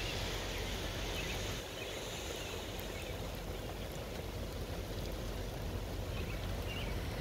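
Steady rushing and splashing of flood water as an SUV's tyres plough through a flooded street.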